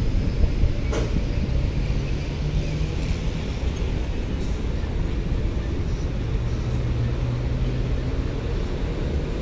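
Steady low rumble of heavy diesel trucks' engines running, with a faint engine hum that comes and goes and a single sharp tick about a second in.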